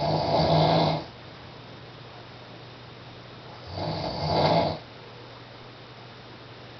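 A man snoring: two snores about four seconds apart, each about a second long, with a steady low hum between them.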